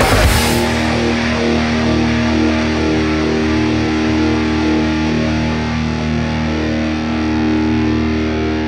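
Heavy rock music with electric guitar. A chord rings out, held steady from about half a second in.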